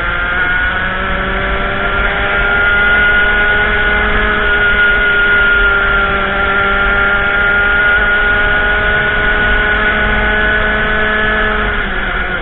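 Racing kart engine heard onboard at full throttle: the revs climb over the first couple of seconds, hold high and steady, then drop near the end as the throttle comes off.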